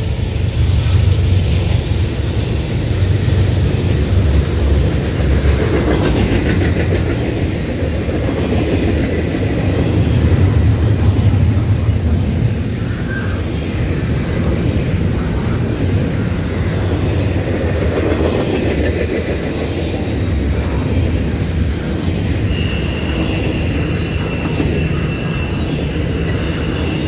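Double-stack intermodal container well cars of a freight train rolling past at speed: a steady heavy rumble and clatter of steel wheels on the rails. A thin high wheel squeal comes in about two-thirds of the way through and holds.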